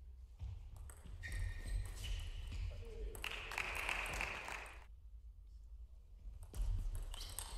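Table tennis rally: the ball tapping off the bats and the table, with a quieter pause after the point ends.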